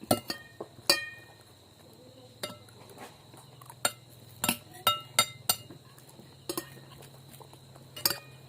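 Cutlery clinking against a plate while eating: about a dozen sharp, irregular clinks, each with a brief ringing tone. The loudest are near the start.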